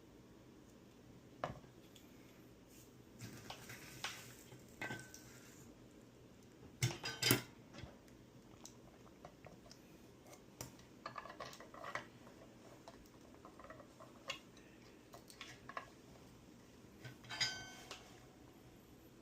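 Scattered light clicks and taps of small metal tools and parts being handled at a soldering job, with a louder clatter about seven seconds in and another near the end that rings briefly.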